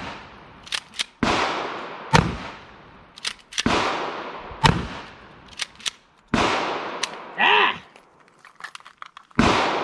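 Pump-action shotgun fitted with a Raptor grip fired four times, about two and a half seconds apart, each blast ringing out afterwards. Sharper, thinner gunshots from other guns on the range crack in between.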